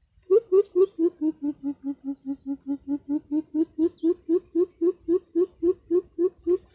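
Greater coucal call: a long run of deep, evenly spaced hoots, about four a second. The hoots sink slightly in pitch through the middle of the series and rise again toward the end.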